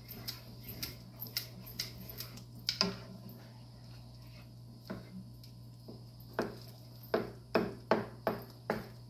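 Wooden spoon stirring a thick cream sauce in a metal pot, knocking lightly against the pot's sides in a run of taps, with a pause in the middle and a quicker, louder run near the end. A steady low hum runs underneath.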